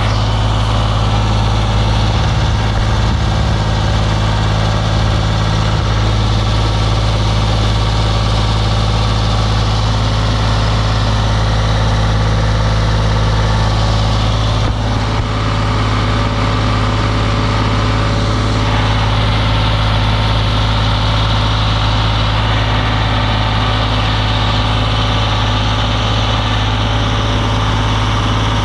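A vehicle engine running steadily at one constant speed: a loud, even hum that does not rise or fall.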